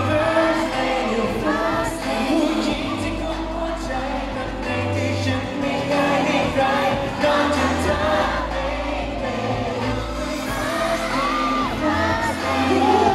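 A man singing a Thai pop song live into a handheld microphone over amplified backing music with a steady bass pulse.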